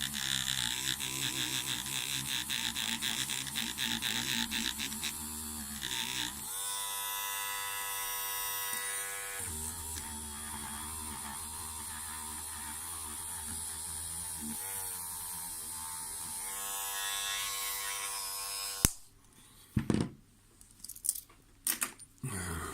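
Handheld rotary tool running with a felt polishing pad and diamond paste on a stainless steel watch clasp, a steady motor whine whose pitch shifts several times as the speed changes. It is switched off with a sharp click about three-quarters of the way through, followed by a few light knocks.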